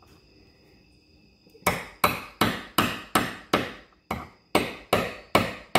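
A claw hammer tapping the top of a metal priming rod, about a dozen sharp metal-on-metal strikes at a steady two to three a second, each with a short ring, starting a little under two seconds in. The strikes drive a primer into a .500 S&W Magnum cartridge case through a 45-70 hand-priming rod.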